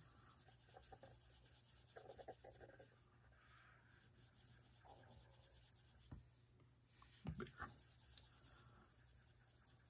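Faint scratching of an Apple Pencil's plastic tip stroking back and forth across an iPad Pro's glass screen while colouring, with a few light taps of the tip about six and seven and a half seconds in.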